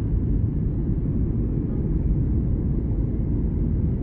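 Steady low rumble inside a jet airliner's cabin in cruise flight, the engine and airflow noise.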